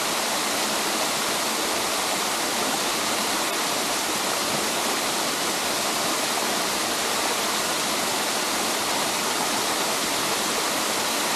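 Waterfall cascading down stepped rock ledges: a steady, unbroken rush and splash of falling water.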